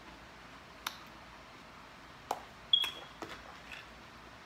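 A metal fork clicking and tapping against a salad bowl, about five short light clicks, the loudest a little before three seconds in with a brief high ring.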